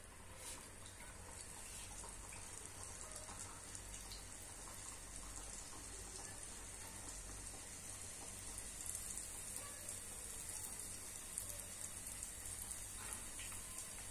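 Sfenj dough frying in hot oil in a small pan: a faint, steady sizzle full of fine crackles, growing a little livelier in the second half.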